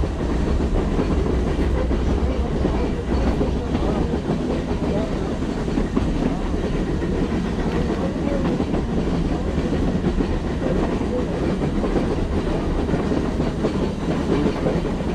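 Steady running noise of a metre-gauge steam train, heard from a carriage window: the coaches rolling over the rails as the HG 3/4 rack steam locomotive BFD 9 hauls them uphill.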